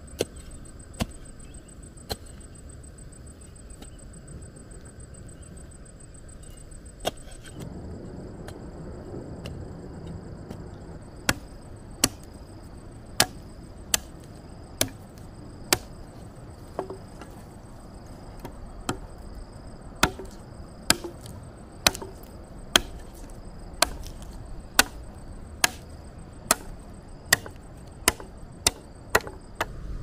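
Repeated sharp chopping blows, a few scattered at first, then about one a second through the second half, over a steady thin high-pitched tone.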